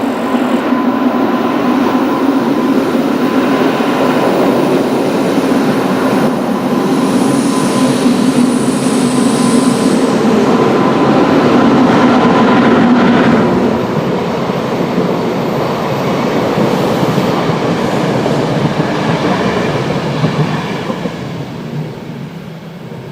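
Express train passing at close range behind an ÖBB class 1144 electric locomotive, its loud cooling fans giving the typical 'Alpine vacuum cleaner' drone with a steady hum. The hum drops away about two-thirds through, leaving the rushing wheel noise of the coaches, which fades near the end.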